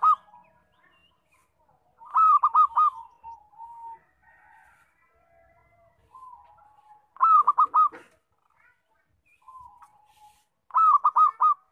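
Local zebra dove (perkutut) singing: three loud phrases of quick, rolling coos, each of three or four notes, about four to five seconds apart, with softer single coos in between.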